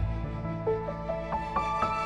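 Nord Wave 2 synthesizer playing a patch with a held low bass note under a melody of short pitched notes stepping upward, played dry without external effects.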